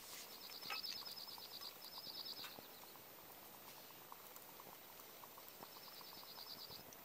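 Faint bubbling of water boiling in a small pot on a camp stove. A high, rapid trill is heard twice over it, once near the start and again near the end.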